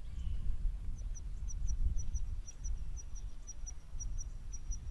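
Wind rumbling on the microphone in an open field, with a thin, high chirp repeated in pairs about twice a second from about a second in until near the end.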